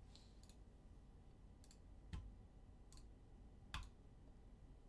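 Faint, sharp clicks, about half a dozen at irregular intervals, the strongest about four seconds in.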